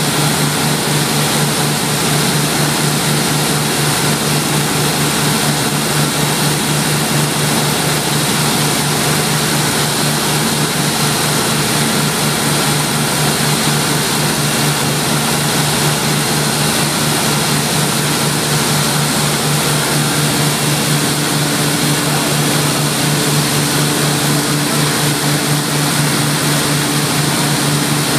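Elcos 800 kW diesel generator set with a Cummins engine running steadily under test, a loud constant drone with a hissing cooling-air noise over it. Its note changes slightly about three-quarters of the way through.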